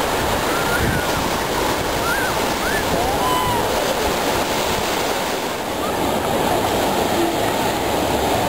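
Surf washing onto a sandy beach: a steady, even rush of small breaking waves, with a few faint distant shouts in the first half.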